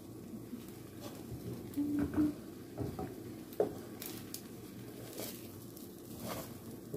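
Wooden spatula scraping and tapping a pan as it pushes setting egg around, a few light scrapes and knocks spread through, over a steady low hum.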